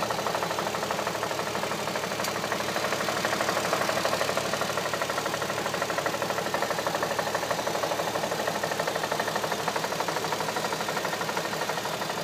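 2007 Audi A3 3.2's VR6 engine running steadily, with a fast, even knock repeating through the engine note: the engine knock the owner is recording.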